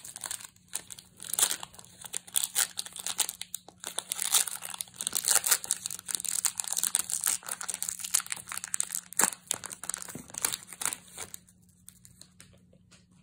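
Foil wrapper of a Panini Select basketball card pack crinkling and tearing as it is opened by hand, in quick irregular rustles that die away about two seconds before the end.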